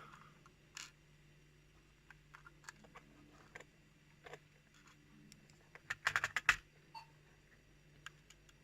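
Faint scattered clicks and ticks of small lock pins and parts being handled, with a quicker, louder run of clicks about six seconds in.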